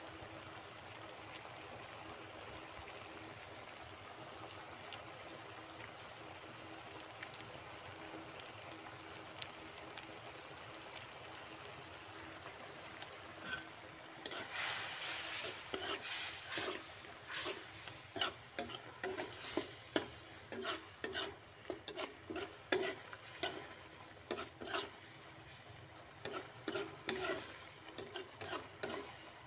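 Shrimp and tomatoes in sauce simmering in a wok, a steady bubbling hiss. About halfway through, stirring begins: a spatula scrapes and knocks against the wok several times a second.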